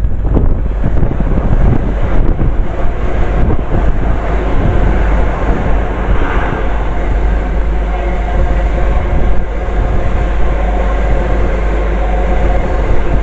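A train running through the station with a steady rumble. From about halfway through, a hum of several steady tones comes in over it. Wind buffets the microphone.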